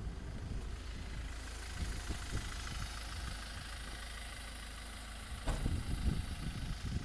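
An engine running steadily with a low rumble, and one sharp click about five and a half seconds in.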